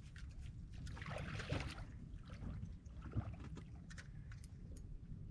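A hooked redfish splashing and swirling at the surface on a tight line, loudest about a second in, with scattered clicks from the rod and reel over a low steady rumble.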